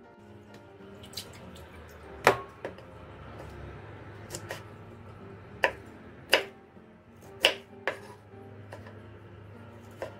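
Kitchen knife striking a wooden cutting board in a handful of sharp, irregularly spaced knocks as eggplant and then broccoli are cut into pieces. Soft background music underneath.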